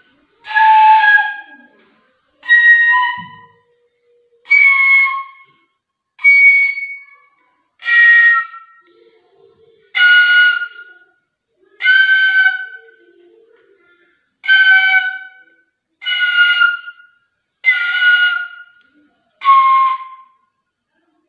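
Bamboo transverse flute played as separate, single held notes, eleven of them, each about a second long with a short silence between. The pitch changes from note to note, and the tone is somewhat breathy.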